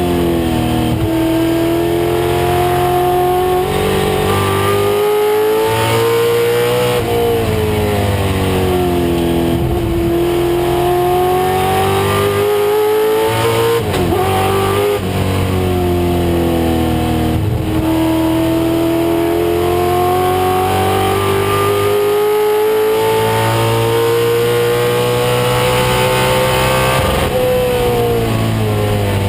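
1996 Ford Mustang race car's engine running hard on track. Its pitch climbs steadily under throttle, then drops several times, sharply around a quarter, half and two-thirds of the way through, as it shifts and slows for corners, before a long climb near the end.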